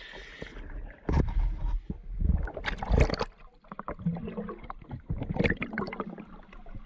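Sea water splashing and sloshing around a diver's camera at the surface, with several irregular loud slaps and knocks. From about four seconds in it turns to muffled underwater bubbling as the camera goes under.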